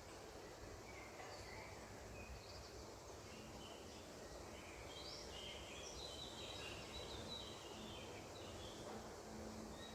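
Birds chirping and trilling faintly in a steady outdoor background hiss, busiest about halfway through.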